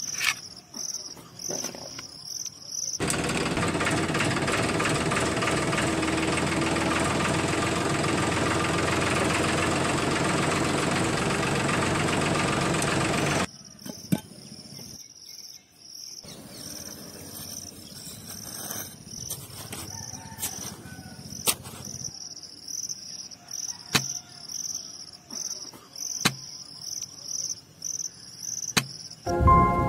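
A small electric motor on a toy truck runs steadily and loudly for about ten seconds, then cuts off suddenly. Crickets chirp at about three pulses a second before and after it, with a few sharp clicks near the end.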